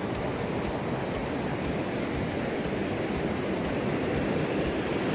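Muddy floodwater rushing steadily through and over a concrete check dam's channel, a continuous even wash of water noise.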